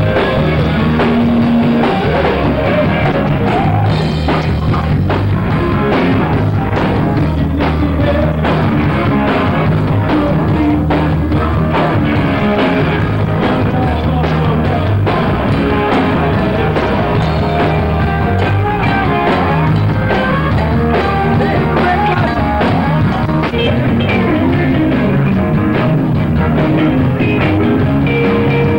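Live rock band playing loudly: guitar and drum kit, with a man singing lead into a microphone.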